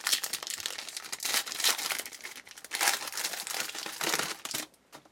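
A trading card pack wrapper crinkling and tearing open as cards are handled; the crinkling stops suddenly near the end.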